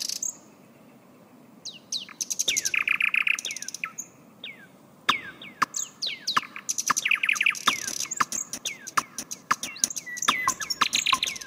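Birds chirping: a quick succession of sharp falling whistles and fast rattling trills, starting after a quiet second and a half.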